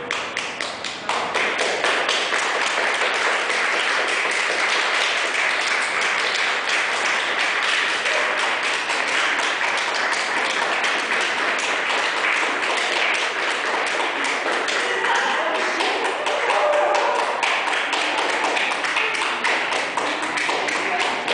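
A crowd clapping: dense, steady applause that starts about a second in.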